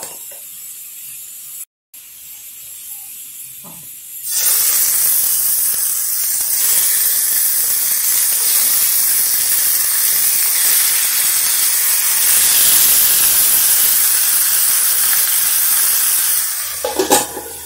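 Pork chops sizzling in hot oil in a frying pan: a loud, steady hiss starts suddenly about four seconds in as the first chops go into the pan and carries on as more are laid in, easing off near the end.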